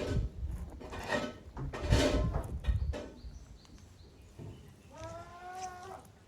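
A young goat bleats once, a high call about a second long and falling slightly in pitch, about five seconds in. Before it come a few knocks and rustles, loudest about two seconds in.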